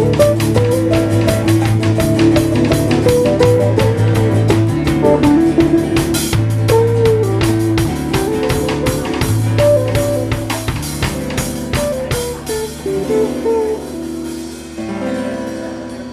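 Live band jamming with guitar and drum kit, in a steady beat with a guitar melody over sustained low notes. About three-quarters of the way through, the drums drop out and the music thins and quiets.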